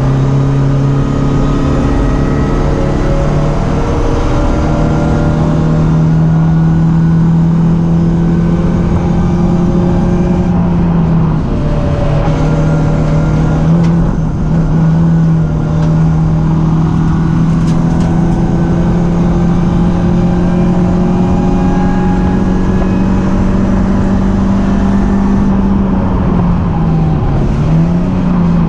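BMW 318ti Cup race car's four-cylinder engine running hard at high revs. Its note holds high and dips briefly and recovers a few times, as with gear changes or lifts into corners.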